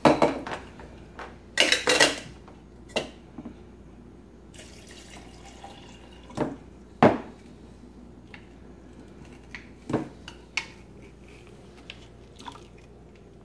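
Food being prepared at a kitchen counter: scattered clinks, taps and knocks of plastic containers and a spoon as food is scooped into a blender cup. There is a short rustling, splashing burst about a second and a half in and one sharp knock near the middle. The blender is not running.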